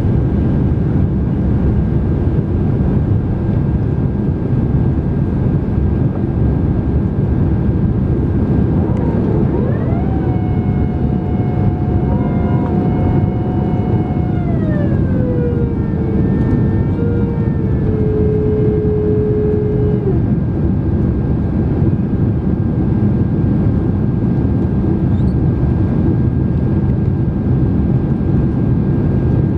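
Steady roar of engine and airflow noise inside the cabin of a Boeing 767-300 in flight. About a third of the way in, a whine rises, holds, glides down to a lower pitch, holds again and cuts off near the middle.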